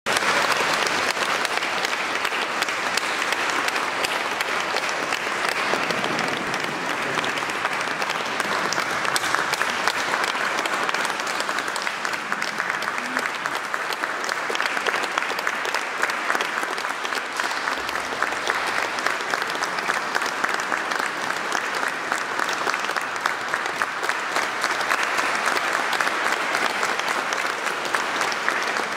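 Audience applauding steadily, a dense, even clapping that neither builds nor fades.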